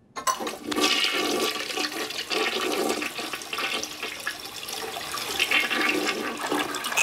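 Cartoon sound effect of a toilet flushing: a long rush of swirling, gurgling water that starts just after a moment of silence.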